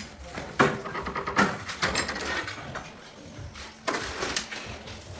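A few sharp knocks, each with a short ring, among lighter clatter and scraping.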